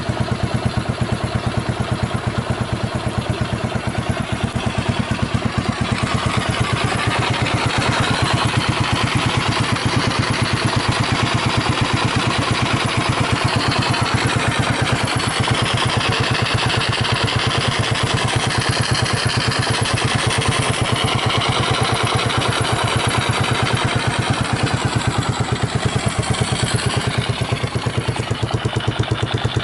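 Honda GB250 Clubman's single-cylinder four-stroke engine idling steadily through an aftermarket Peyton Place exhaust, with even firing pulses. The seller reports it free of abnormal noises.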